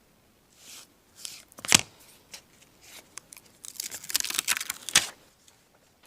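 Pieces of sound deadener mat being handled: rustling and crinkling with a few sharp taps, one near two seconds in, and a longer run of crinkling about four seconds in that ends in a tap.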